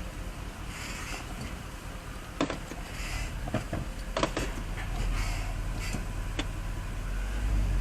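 Porsche Cayenne running and being moved slowly on the brakes, with a steady low rumble, a few sharp clicks and knocks, and brief faint squeaks. The squeak is a brake caliper that still squeaks a little after new pads, which the mechanic suspects comes from an ungreased metal pad plate.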